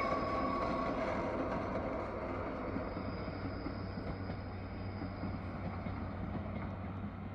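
Regional train of ÖBB Cityshuttle coaches rolling past on the track, its rolling noise fading steadily as it moves away; a high steady tone dies out about a second in.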